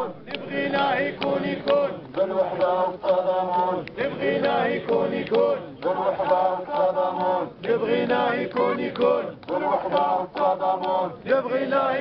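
A crowd of men chanting protest slogans in unison, led through a megaphone, in phrases with short breaks about every two seconds.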